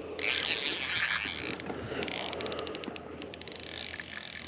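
Fishing reel ratcheting and clicking as a hooked walleye is fought. It starts suddenly just after the opening, with a fast run of clicks near the three-second mark.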